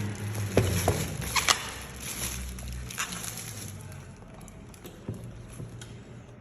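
A smartphone box and its packaging being handled during unboxing: a few sharp taps and clicks in the first three seconds, then fainter small ticks.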